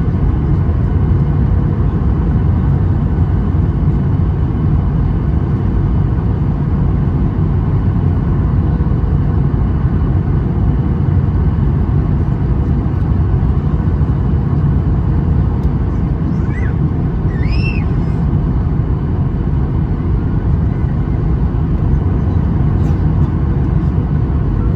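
Steady roar of airflow and engines heard inside the cabin of a Boeing 737-800 in flight on approach, deepest in the low end. A brief high-pitched chirp cuts through about two-thirds of the way in.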